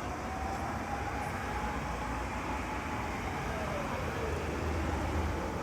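Emergency vehicle siren wailing faintly over a steady rumble of road noise: it holds a high pitch, falls away about four seconds in, and starts to rise again near the end.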